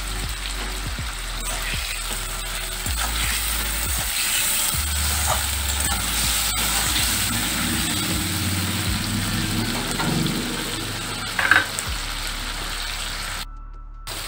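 Chopped tomatoes sizzling in hot mustard oil in a steel kadai, with a spatula scraping and knocking against the pan as they are stirred. One louder knock comes near the end, and the sizzle cuts off briefly just before the end.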